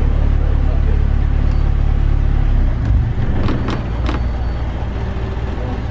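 Canal boat's engine running steadily, heard from inside the cabin, its low note shifting and easing slightly about halfway through. A few sharp knocks come just after the change.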